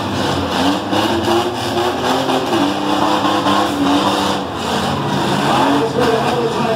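Engines of several demolition-derby minivans revving hard as they push and ram one another, their pitch rising and falling, with a few sharp knocks of contact mixed in.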